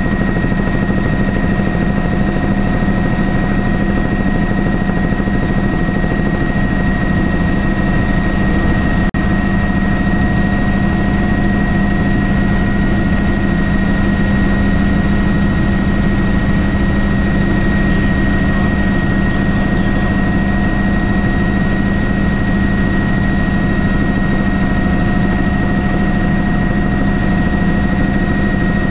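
Helicopter's rotor and engine running steadily, a dense low hum with a steady high whine over it. The sound drops out very briefly about nine seconds in.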